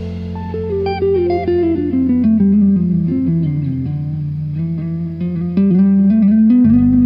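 Background music: a guitar melody stepping downward and then back up over sustained bass notes.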